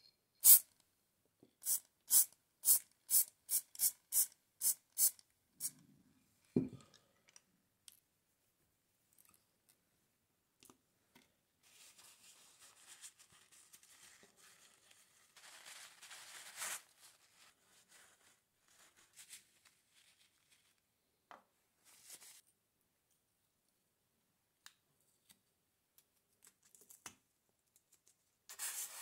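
Aerosol spray paint can sprayed in a rapid run of short hisses, about three a second, for the first five seconds, followed by a single dull thump. Later, faint rubbing of a paper towel wiping small metal parts.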